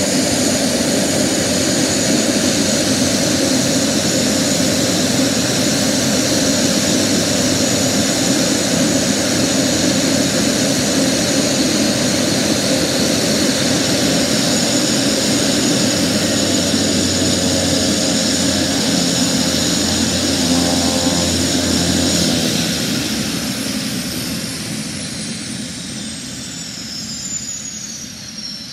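Pilatus PC-12's PT6A turboprop engine running steadily at idle, with a high turbine whine over the propeller. About three quarters of the way through it is shut down: the level drops and the whine falls steadily in pitch as the turbine and propeller spin down.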